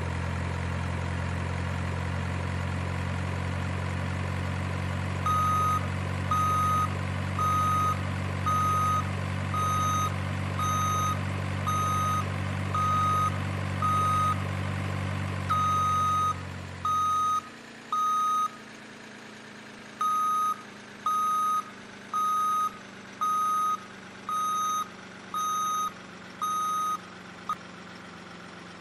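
Remote-control truck's sound unit playing a low, steady engine idle with a reversing beeper that starts a few seconds in and sounds about once a second. The engine sound cuts off about two-thirds of the way through while the beeping goes on, ending with one short beep near the end.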